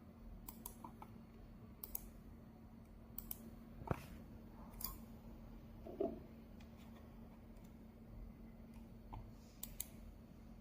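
Faint, scattered clicks and taps at irregular intervals, the sharpest about four seconds in, over a low steady hum.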